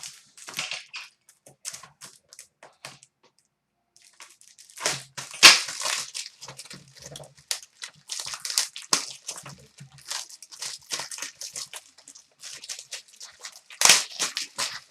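Foil trading-card pack wrappers being torn open and crinkled, with cards shuffled in hand, in a run of sharp rustles. There is a pause about three seconds in, and the loudest tears come about five and a half seconds in and near the end.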